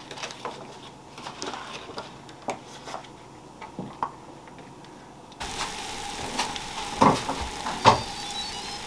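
Soft clicks and taps of dumplings being filled and folded by hand at a table. About five seconds in, a steady hum with hiss takes over, broken by two sharp clicks.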